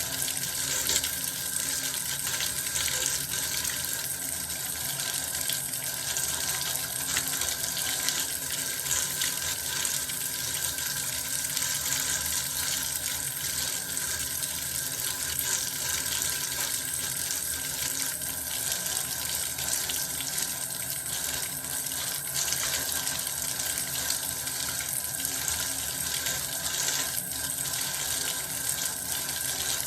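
Bath water running steadily from a tap, a constant rush of water with fine splashing that stays even throughout.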